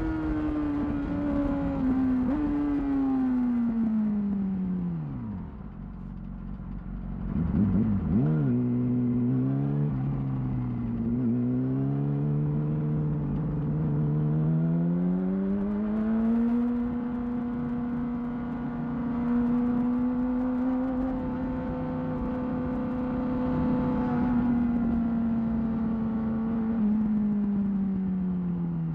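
2008 Yamaha R6's inline-four engine through a Termignoni exhaust, heard from the rider's seat. The engine note falls as the bike slows, gives a few quick throttle blips about eight seconds in, then climbs and holds a steady cruising note for about ten seconds before dropping off again near the end.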